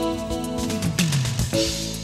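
Background music with held instrumental notes and a beat; about halfway through, a note slides steadily down in pitch.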